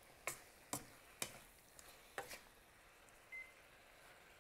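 Wooden spatula knocking and scraping against a wok while stir-frying beef and Napa cabbage: a few soft knocks in the first two seconds or so. About three seconds in, a short faint beep from the glass cooktop's touch controls.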